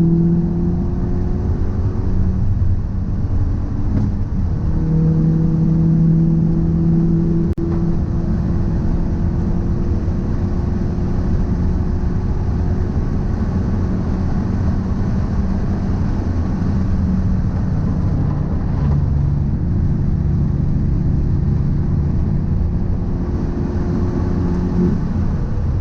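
A car being driven, with a steady low rumble and a droning hum whose pitch drifts slowly. This is the abnormal noise that the owner suspects comes from a drive shaft or a wheel hub.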